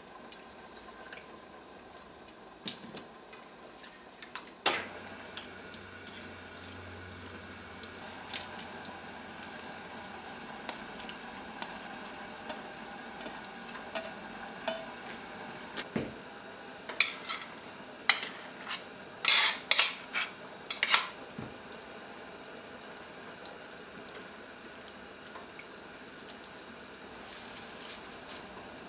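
Cooking in a pot of curry: chunks of potato and diced tomato drop into the liquid, and a wooden spatula knocks and scrapes against the pot in scattered clacks. The loudest knocks come in a cluster about two-thirds of the way through, over a faint steady hiss of the simmering pot.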